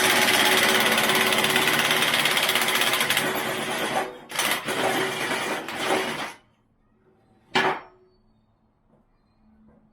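Ryobi 18V One+ HP 600 ft-lb cordless impact wrench hammering on a rusted, seized fastener on its lowest setting, one long run of about four seconds, then two shorter bursts after a brief pause. It breaks the fastener loose. A single sharp clank follows about a second and a half later.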